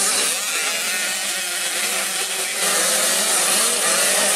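Several 65cc two-stroke motocross minibikes racing, their engines buzzing and revving with pitches that rise and fall. The sound shifts a little over halfway through.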